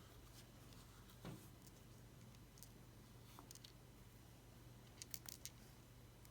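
Near silence: room tone with a steady low hum and a few faint, light clicks, a small cluster of them about five seconds in, from small-parts handling as a toothpick dabs adhesive onto a watch.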